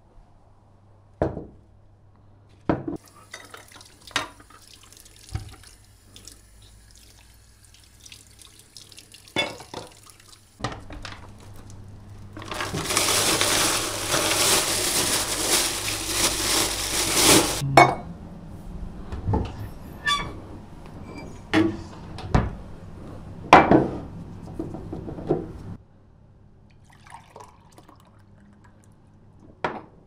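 Kitchen tap running for about five seconds in the middle, among scattered knocks and clinks of bottles and utensils set down on a counter.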